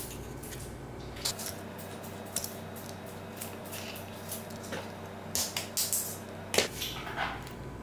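Small clicks and taps of metal and plastic model-car parts being handled and pried apart with pliers as a 1:18 scale model is dismantled, with its axle and wheels coming off. The sharpest click comes near the end.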